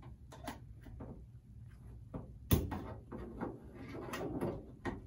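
Flathead screwdriver prying at the plastic faceplate of a float-and-string tank level gauge: scattered small clicks and scrapes of plastic, with one sharp click about two and a half seconds in.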